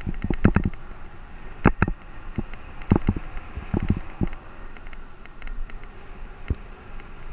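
Caloi 10 road bicycle rolling along an asphalt road, recorded from a helmet-mounted camera: steady wind rush over the microphone with sharp knocks and rattles at irregular intervals, several close together in the first second.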